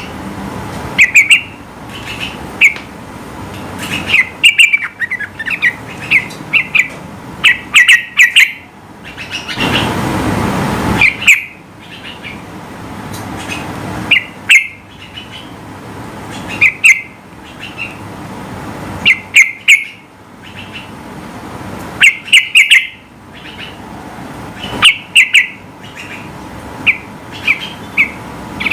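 Yellow-vented bulbul (trucukan) calling: loud, sharp chirps in quick clusters of two to four notes, repeated every second or two. About ten seconds in, a rush of noise lasts around two seconds.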